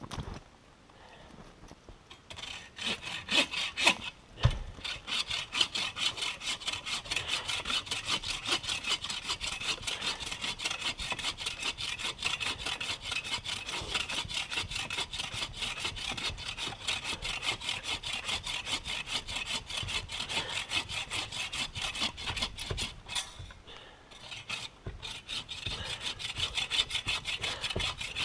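Hand saw cutting through firewood in rapid, even back-and-forth strokes, with a short pause near the end.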